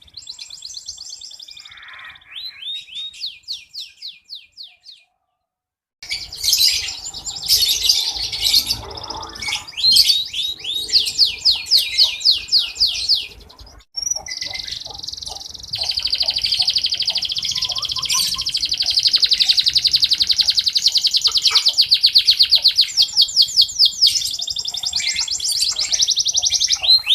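Red canary singing a long song of fast rolling trills and rapid runs of repeated high notes, broken by a brief silence about five seconds in.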